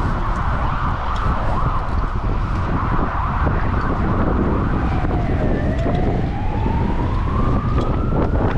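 Strong wind buffeting the microphone in a steady, rumbling rush. In the second half a fainter tone dips in pitch and then slowly rises.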